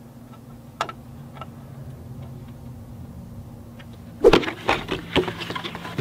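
A few faint small clicks of a screw being driven into a motherboard's M.2 slot over a low steady hum. Then, about four seconds in, loud rustling and clatter of a cardboard CPU retail box being handled and opened.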